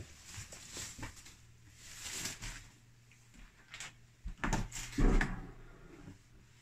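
An old wooden interior door being handled and opened: scattered clicks and knocks, with the loudest knocks and a short creak a little past the middle.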